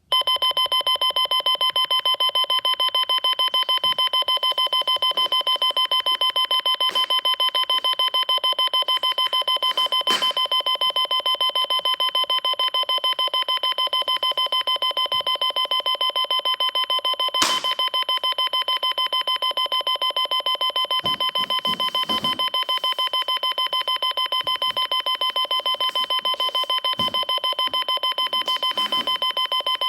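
Electronic beeping repeated rapidly and evenly, about six or seven short beeps a second at one fixed, high, piercing pitch, like an alarm. A couple of faint knocks sound under it.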